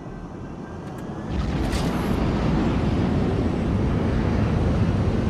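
Jet aircraft engines rumbling, swelling up sharply about a second in and then holding loud and steady, with a brief high hiss near two seconds.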